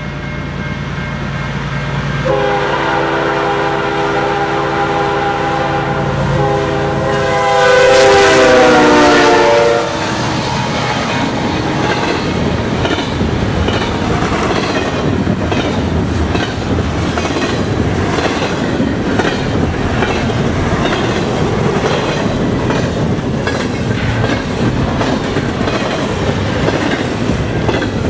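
CN ES44DC diesel locomotive approaching at speed and sounding its multi-note air horn for about eight seconds, getting louder and dropping in pitch as it passes about ten seconds in. Then the double-stack container cars rush by at over 100 km/h, wheels clattering over the rail joints in a fast, even rhythm.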